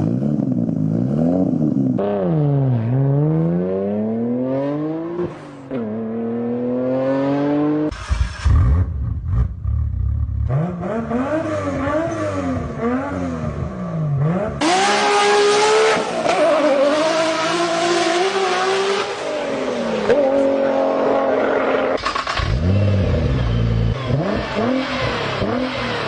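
A run of short clips of Nissan GT-R engines revving and accelerating hard. The engine note climbs and drops again and again, and the sound changes abruptly several times as one recording gives way to another.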